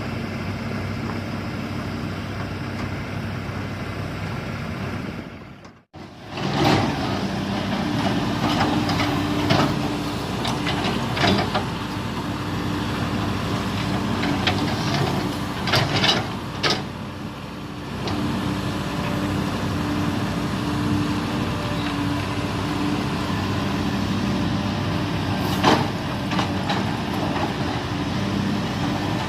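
Cat 320D hydraulic excavator's diesel engine running steadily as it works, with sharp metallic clanks and knocks scattered through. The sound drops out abruptly for a moment about six seconds in.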